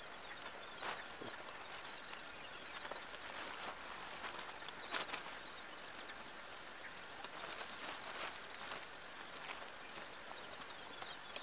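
Short rustles of nylon tent fabric and clicks of tent poles being handled while a dome tent is pitched, over a steady outdoor hiss. A faint high chirp repeats evenly in the background.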